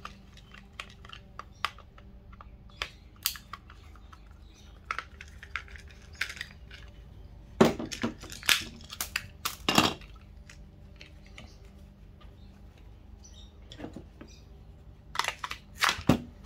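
Screwdriver and hands working a plastic plug-pack power supply's casing: small scattered clicks and scrapes, then louder knocks and clatter of hard plastic and tools on the bench about eight seconds in and again near the end as the housing is pried open. A faint steady hum runs underneath.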